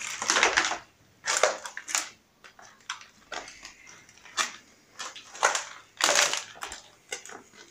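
Footsteps crunching over debris and rubble on the floor: a handful of short crunches at irregular intervals.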